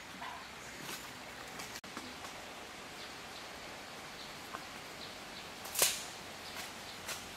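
Dry leaves and undergrowth rustling and crackling as a person moves through brush, with scattered small crackles and one louder, short crackle about six seconds in, over a steady outdoor hiss.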